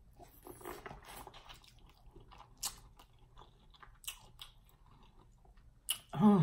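Biting into and chewing boiled corn on the cob: soft, irregular wet chewing with a few sharper crunches of kernels. A brief vocal sound comes near the end.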